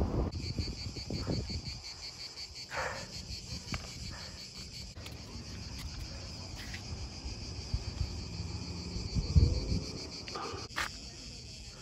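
Cicadas in the pines shrilling steadily, a fast even pulsing chorus. About nine seconds in, a low rumble of wind on the microphone briefly rises over it.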